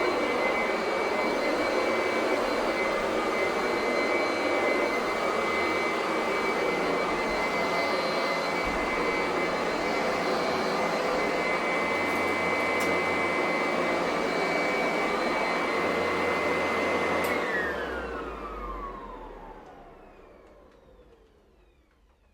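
Antique vacuum cleaner running, a steady rush of air with a high motor whine. About seventeen seconds in the power goes off and the whine falls steadily in pitch as the motor spins down to a stop.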